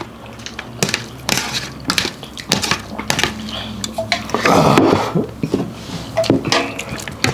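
Eating sounds at a meal: chewing and crunching, with repeated sharp clinks and knocks of dishes and utensils.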